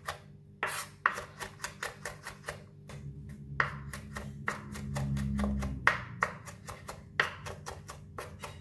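Kitchen knife mincing garlic on a bamboo chopping board: the blade knocks the board in quick, slightly uneven strokes, about four a second.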